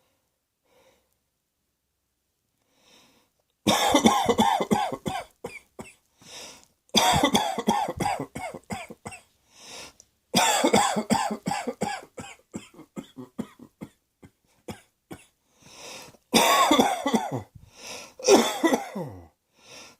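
A person coughing in several fits of quick, repeated coughs, the first starting a few seconds in after near silence.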